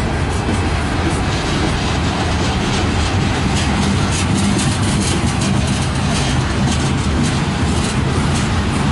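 Freight cars of a long mixed-freight train rolling past at low speed: steady wheel-on-rail rumble with frequent small clicks and rattles, over a steady low hum.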